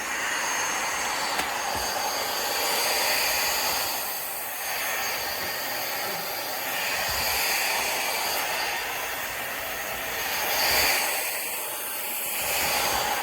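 Powerffy N10 cordless stick vacuum running: a steady high motor whine over rushing airflow, swelling and easing every few seconds.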